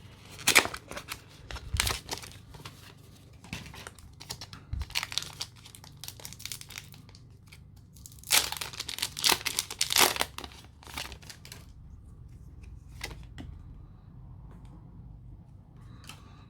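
Foil Pokémon booster-pack wrapper being torn open and crinkled by hand, in several bursts of tearing and rustling, the loudest about eight to ten seconds in.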